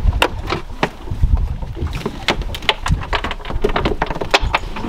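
A run of irregular sharp clicks and knocks over a low rumble.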